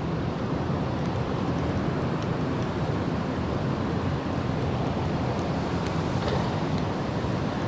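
Steady wind noise rumbling on an action camera's microphone, with a few faint ticks scattered through it.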